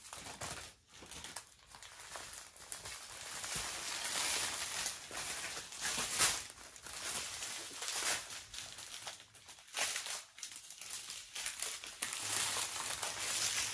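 Small plastic bags of diamond painting drills being handled and sorted, the plastic crinkling in irregular rustles.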